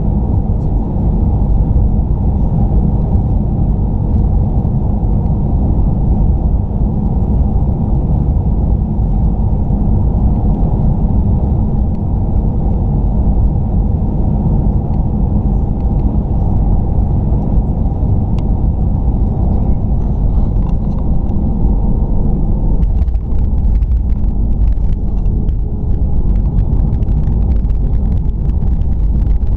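Jet airliner cabin noise: a loud, steady low rumble of engines and airflow on final approach. About 23 seconds in the wheels touch down, and rattling and jolting from the runway roll join the rumble.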